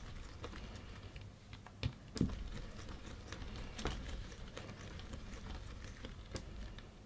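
A clay-covered ball being rolled under a palm on a wooden board: faint rubbing with scattered light taps, and two louder knocks about two seconds in.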